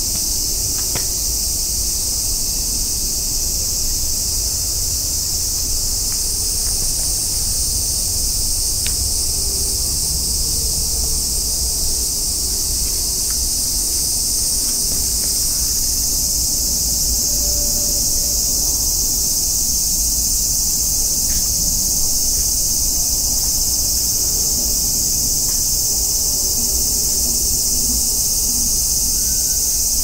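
Steady, dense chorus of insects, a continuous high-pitched hiss with no break, over a low rumble.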